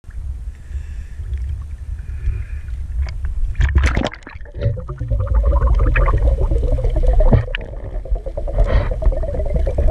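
Water sloshing and rumbling against an action camera in its housing at the sea surface, with a short splashing rush of bubbles about four seconds in. Background music comes in about a second later over the low water rumble.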